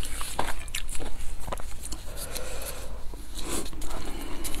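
Close-miked eating sounds: quick wet mouth clicks and chewing, mixed with the crinkle of a paper napkin and plastic gloves handling noodles.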